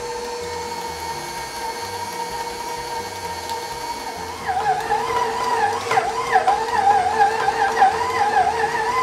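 KitchenAid Professional stand mixer motor whining steadily at its raised speed while the dough hook kneads bread dough. About halfway through it gets louder and its pitch starts to waver as the dough comes together into a ball and loads the motor.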